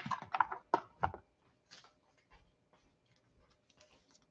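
Trading cards and their clear plastic holders being handled: a quick cluster of clicks and rustles in the first second or so, then near silence with a few faint ticks.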